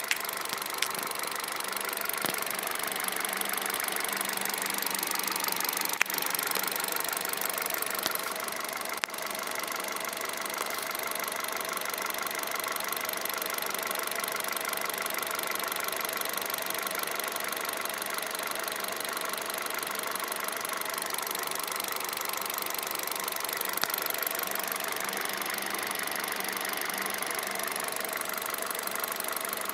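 Kia Rio engine running steadily with a fast, even ticking over its hum: a new extraneous noise from the engine that the owner wants diagnosed. A few sharp clicks sound within the first nine seconds.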